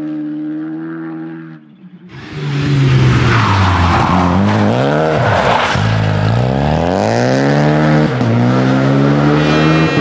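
Rally car engines at speed on a stage. First one car's engine holds a steady note as it pulls away, then about two seconds in a second rally car's engine comes in loud, revving hard through a corner with its pitch rising and falling repeatedly as the driver lifts, brakes and changes gear.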